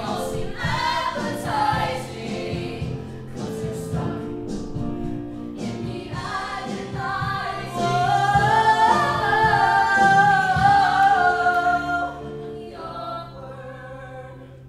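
Musical-theatre cast singing a number with instrumental accompaniment. The ensemble sings together, then about eight seconds in a lead voice holds a long, loud note for some four seconds before the singing drops away near the end.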